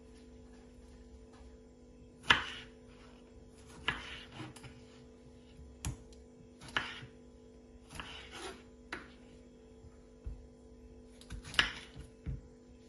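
Kitchen knife cutting tomatoes on a wooden cutting board: about eight separate cuts, each a short slicing swish and knock on the board. The loudest cuts come about two seconds in and near the end.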